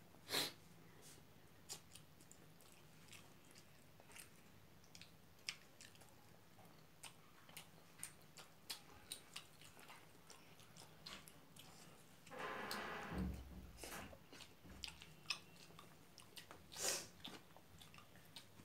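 Close-miked chewing with many small wet mouth clicks and smacks as rice and pork curry are eaten by hand. About twelve seconds in there is a longer noisy sound lasting a second or so.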